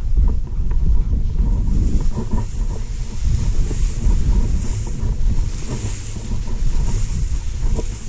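Wind buffeting the microphone, with dry prairie grass swishing against legs and clothing about once a second as a hunter wades through it on foot.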